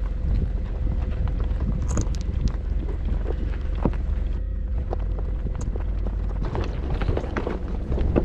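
A Jeep running, a steady low rumble with light clicks and rattles scattered through it.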